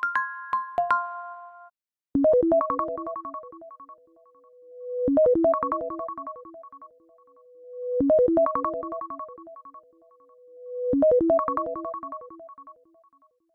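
iPhone ringtone looping: a short phrase of quick synthesized notes ending on a held, swelling tone, repeated four times about every three seconds. It follows a brief chime of a few overlapping tones that cuts off after about a second and a half.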